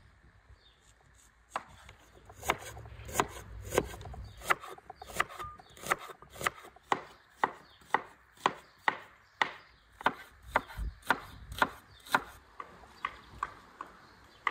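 Kitchen knife chopping on a wooden cutting board: a steady run of sharp knocks, about two a second, starting about a second and a half in and growing softer near the end.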